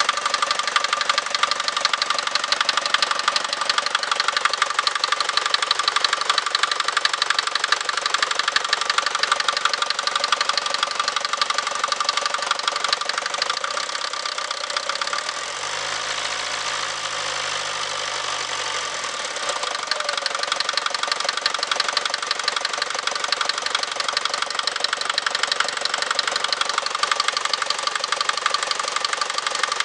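Mercedes Vito 110D's OM601 2.3-litre diesel engine running with a fast, even knocking: the engine knock the owner is showing as a fault. For a few seconds around the middle the knocking eases and a lower hum comes in.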